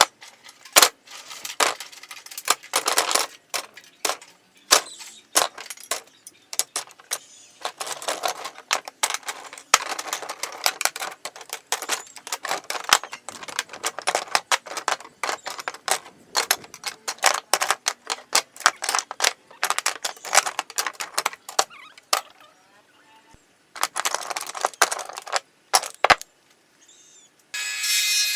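Dense, irregular clattering and knocking of small hard objects being handled, in clusters with short pauses. Near the end a power tool starts and runs steadily.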